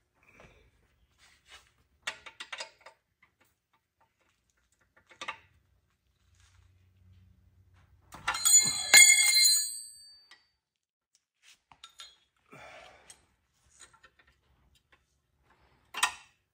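Metal hand tools clinking and knocking while torque converter nuts are worked loose, with a loud burst of ringing metallic clanking about eight and a half seconds in.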